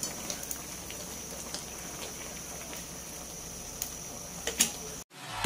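Beef and broccoli simmering in broth in a nonstick pan: a steady bubbling hiss with a few small pops. It cuts off suddenly near the end.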